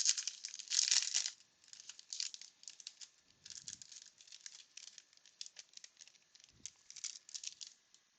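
Wax paper wrapper of a 1992 Bowman baseball card pack being torn open and crinkled: a run of short, high crackles, loudest in the first second and a half, then scattered, stopping shortly before the end.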